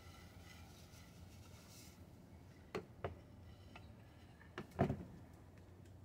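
Grain feed poured from a plastic cup into a plastic dish, a faint soft rustle, followed by a couple of sharp knocks about three seconds in and a louder knock about five seconds in.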